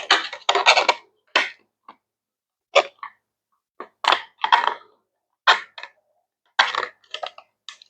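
Hard plastic parts of a hydroponic tower lid clicking and knocking together as they are handled and fitted, in a series of short, irregular clatters.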